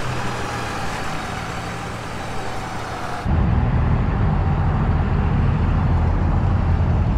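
A heavy vehicle's engine running. About three seconds in the sound abruptly turns louder and deeper.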